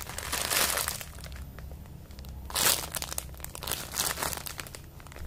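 Plastic packaging crinkling as a squishy toy still in its bag is handled, in irregular bursts, the loudest a little before three seconds in.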